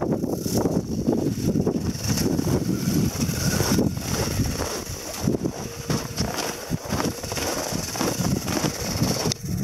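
1/10-scale RC4WD FJ40 crawler's electric motor and gears whining as it drives over hard-packed snow, the whine rising and easing with the throttle. Wind buffets the microphone underneath.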